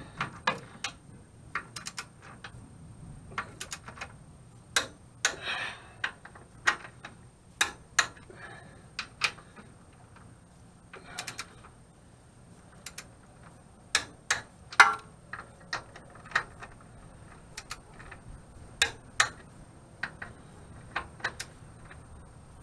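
Hand socket ratchet clicking in short, irregular strokes as a bolt is turned.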